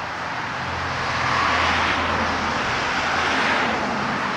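Road traffic passing on the street: tyre and engine noise of a car swelling about a second in and easing off near the end.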